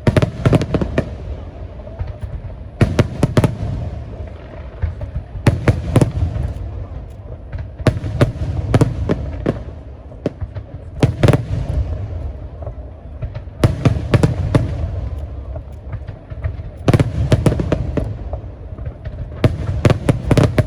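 Aerial fireworks bursting: volleys of several sharp bangs every two to three seconds, each followed by a low rumbling echo.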